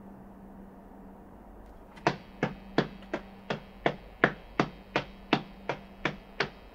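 Sharp, evenly spaced ticks, about three a second, beginning about two seconds in over a low steady hum.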